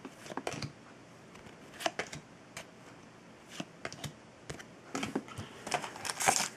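Trading cards being handled and flipped through by hand: scattered light clicks and ticks of card stock sliding and tapping against the stack, coming more often near the end.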